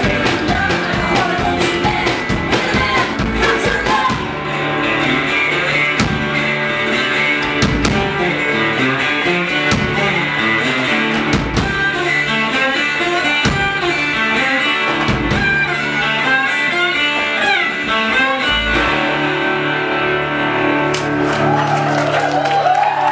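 Live acoustic band playing an instrumental passage: a banjo and an acoustic guitar picking quick notes over an upright bass.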